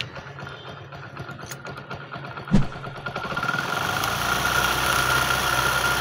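1999 Hero Honda Splendor Plus single-cylinder four-stroke engine running just after starting, with its magneto flywheel spinning uncovered. It runs steadily with no tick, now that the flywheel plates that rubbed on the coil have been removed. A single sharp knock comes about two and a half seconds in, and the engine grows louder from about three and a half seconds in.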